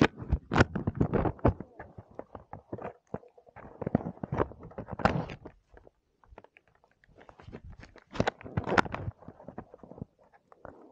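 Irregular knocks, clicks and rustling in three clusters, with quieter gaps between.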